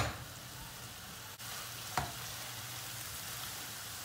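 Onions, peppers and tomatoes sizzling steadily in a frying pan. A sharp clack fades out right at the start, and a light knock comes about two seconds in.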